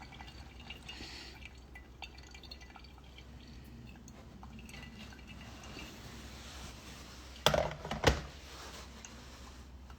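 Brewing coffee dripping slowly, with faint drips and trickling. About seven and a half seconds in, two sharp knocks half a second apart.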